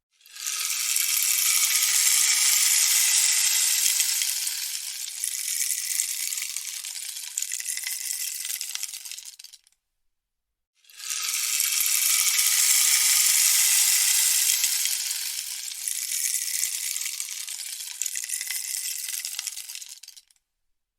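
Rainstick turned over twice: each pass is a dense hiss of beads falling through the tube for about ten seconds, strongest in the first few seconds and thinning out towards the end, with about a second of silence between the two passes.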